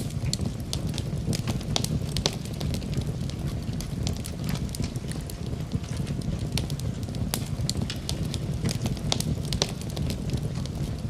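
Fire in a fireplace crackling, with frequent irregular sharp pops and snaps over a steady low rumble of the flames.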